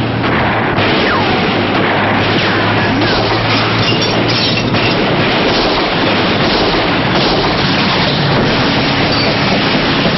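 Film action soundtrack: a loud, dense rumble with booming and crashing effects and a steady low hum, music mixed in underneath.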